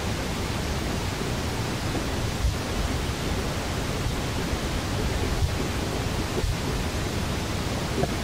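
Wind buffeting the microphone: a steady rushing noise with a fluctuating low rumble and no animal calls.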